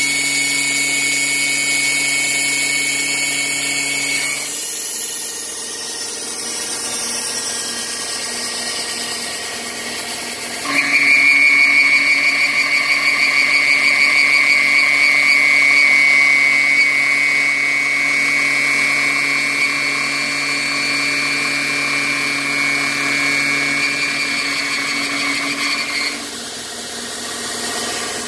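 Electric power tool motor running continuously while milling in a slide jig, with a steady whine. The tone drops and roughens about four seconds in, then grows louder and higher from about eleven seconds in until about twenty-six seconds in, as the cutting load changes.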